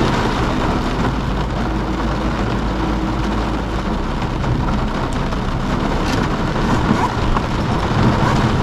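Heavy thunderstorm rain pelting a car's windshield and roof, heard from inside the car, a steady dense hiss with a low hum underneath.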